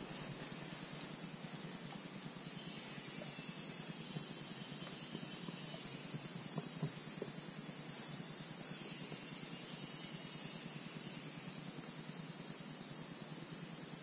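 Steady high-pitched hiss that grows a little louder about a second in and again about three seconds in.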